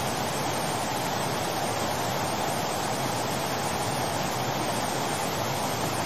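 Steady rushing roar of a flood torrent: fast muddy river water crashing past in a continuous, even wash of noise.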